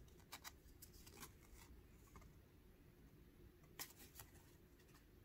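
Near silence broken by faint clicks and soft slides of hockey trading cards being handled and moved through a stack in the hand. There is a cluster of light ticks in the first second and a half and one sharper click near four seconds.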